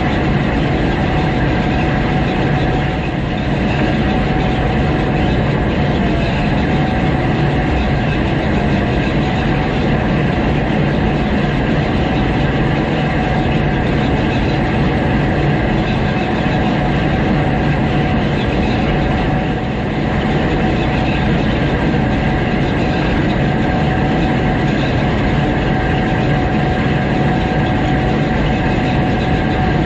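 Gleaner S98 combine running steadily while harvesting oats: a continuous heavy mechanical drone with a steady high whine throughout.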